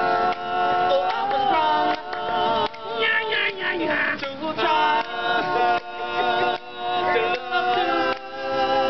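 Four-man a cappella vocal group singing in close harmony, holding chords with finger snaps keeping time. About three seconds in, one voice slides down in pitch.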